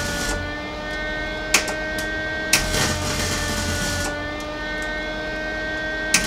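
Flux-core MIG welder tack-welding a sheet-steel floor-pan patch: short bursts of arc crackle with sharp pops. The longest burst comes about two and a half seconds in and lasts a second and a half. Under it runs a steady droning hum.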